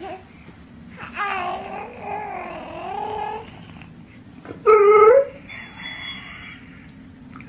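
A baby and a German Shepherd vocalizing in turn. First a long wavering moan-like call, then a short, loud, rising coo about halfway through. Near the end the dog gives a thin, high-pitched whine with its mouth wide open.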